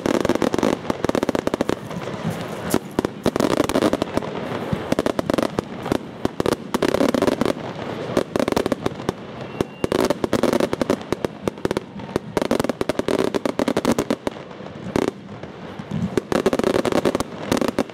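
Fireworks display: a continuous barrage of sharp bangs and crackles from bursting shells, coming in dense swells every couple of seconds.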